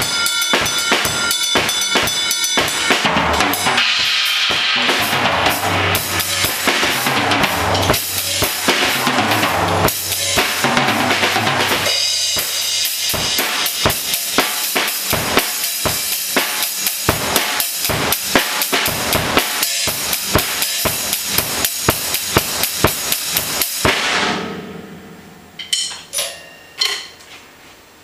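Thor drum kit played in a funk groove: bass drum, snare and toms under ringing cymbals, with fills and a long stretch of fast, even strokes. The playing stops suddenly about three-quarters of the way through, the cymbals ring out, and a few sharp knocks follow.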